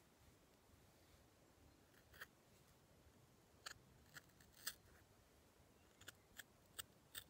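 Sharp fabric scissors snipping through a handspun, hand-knit wool sweater as a steek is cut open for an armhole: about ten short snips at irregular intervals, the first about two seconds in.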